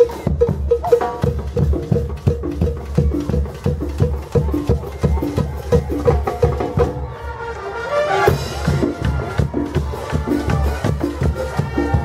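Marching band drumline playing a fast, steady rhythm on bass drums, snare drums and a conga. Brass, trombones among it, comes in over the drums in the second half.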